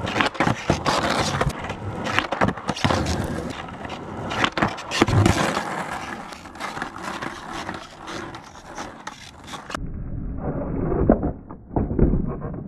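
Skateboard wheels rolling over rough asphalt, with sharp clacks and knocks from the board and a heavy thump about five seconds in. About ten seconds in the sound turns suddenly muffled and duller.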